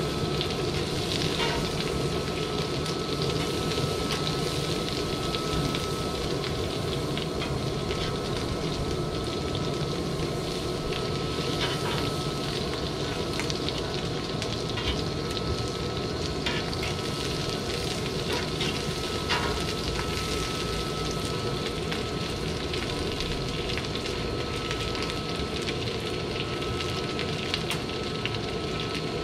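Snapper fillets sizzling in melting butter and oil in a hot metal pan on a grill, a steady frying hiss. Now and then a metal spatula clicks and scrapes against the pan.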